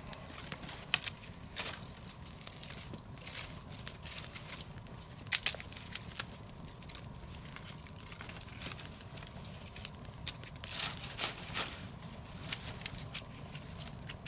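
Small fire of dry twigs and sticks crackling, with irregular sharp pops and snaps, as dry sticks are laid onto it; the loudest snaps come about five seconds in.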